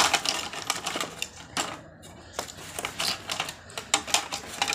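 Clatter and rapid, irregular clicking of small hard objects being handled and rummaged through, with a loud knock at the start.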